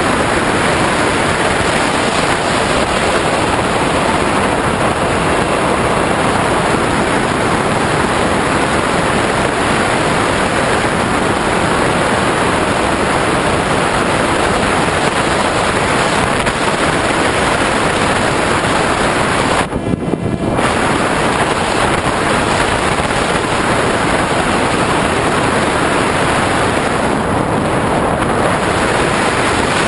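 Steady, loud rushing wind noise from airflow over the onboard camera of an RC model plane in flight, dipping briefly about two-thirds of the way through and easing in the upper range again near the end.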